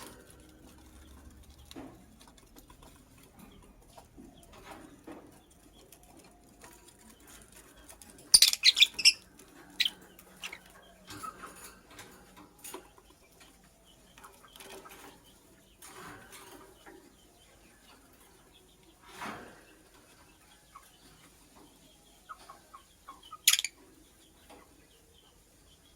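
Lovebird giving short, high-pitched chirps: a quick run of four or five about a third of the way in and one sharp chirp near the end, with faint scattered rustles and clicks between.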